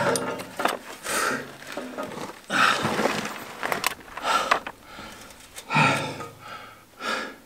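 A man grunting and breathing hard in short bursts, with the strain of heaving a heavy bucket of wet sludge and stones up out of a concrete water tank, mixed with scraping and rattling as the debris is tipped into a wheelbarrow.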